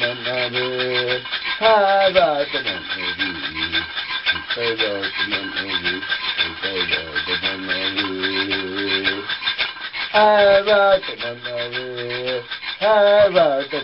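A man singing a chant in phrases of long, wavering notes, with a handheld rattle shaken steadily in a continuous rasp beneath the voice.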